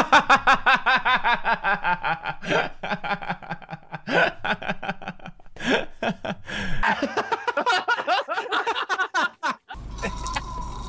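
A man laughing hard in quick, repeated bursts. About a second before the end, the laughter gives way to the low, steady rumble of a car interior.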